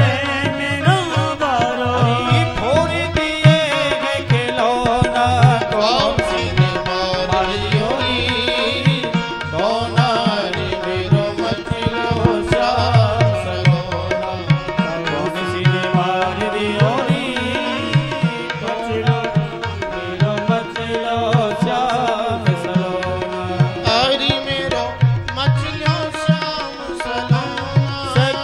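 Devotional bhajan music: tabla keeps a steady beat under a bending melodic line.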